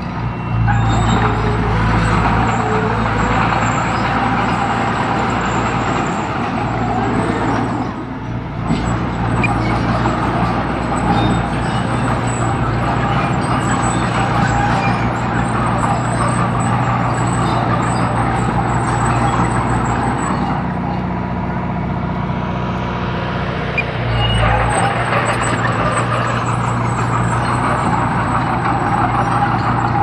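Diesel engine of a small Komatsu D20P crawler bulldozer running steadily while it works. The engine note shifts briefly about eight seconds in, and again from about twenty to twenty-four seconds.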